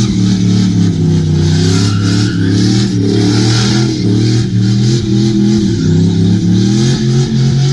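Vehicle engine running and being revved, its pitch wavering up and down.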